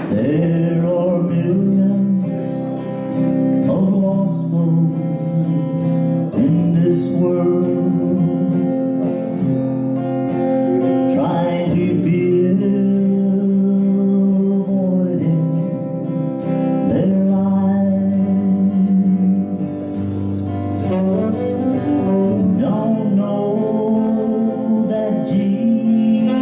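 A man singing a gospel praise song while playing electric guitar, performed live.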